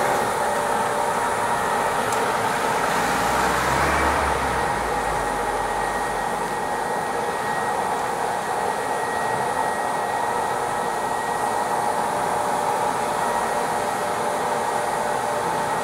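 Road-repair machinery running steadily: an even blowing drone with a constant high hum, with a deeper rumble swelling and fading a few seconds in.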